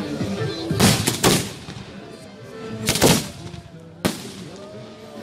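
Aerial fireworks going off overhead: a cluster of bangs with a rumbling tail about a second in, another bang near three seconds and a sharp crack about four seconds in, with music playing underneath.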